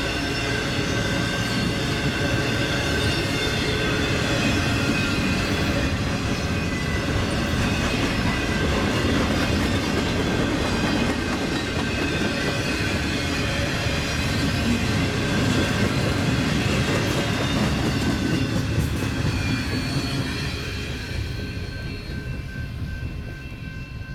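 Intermodal freight cars rolling past at speed: a steady rumble of wheels on rail with a high-pitched wheel squeal over it. It fades away over the last few seconds as the end of the train goes by.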